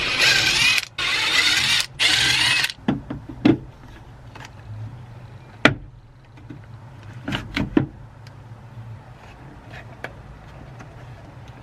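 A cordless power driver runs in three short whirring bursts, backing out the door speaker's screws. Scattered plastic knocks and clicks follow as the speaker is worked loose from the door.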